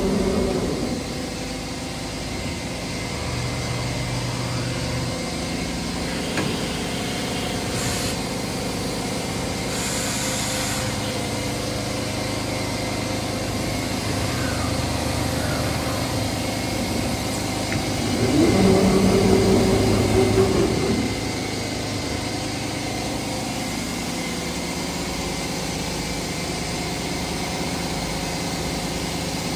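CNC router running its program, the gantry and head traversing the table: steady motor tones that change pitch with each move, over a constant hum. They grow louder for a couple of seconds about two-thirds of the way through.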